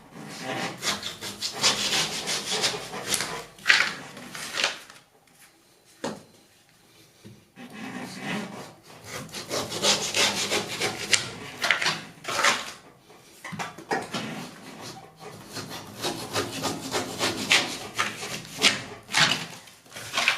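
Hand scraping and rubbing on the wall, in three long spells of quick, rough strokes with short pauses between.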